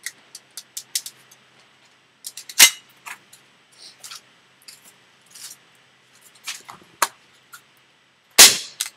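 Air pistol firing: two sharp, loud cracks, one about two and a half seconds in and one near the end, with light clicks of handling the pistol in between.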